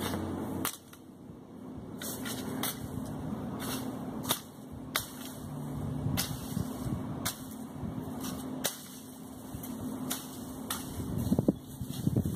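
Black Legion survival machete chopping into leafy branches and brush: about a dozen sharp chops at an irregular pace, roughly every half second to a second and a half.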